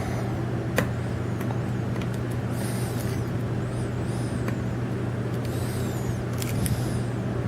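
Hook pick and tension wrench working the pin tumblers of a 50mm Wilson Bohannan padlock held under heavy tension: scattered small clicks as pins set, with a few short high metallic scrapes of the pick on the pins. A steady low hum underlies it all.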